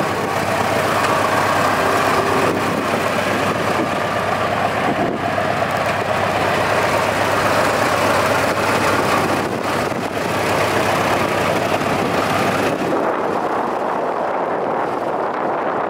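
Massey Harris 50 tractor engine idling steadily.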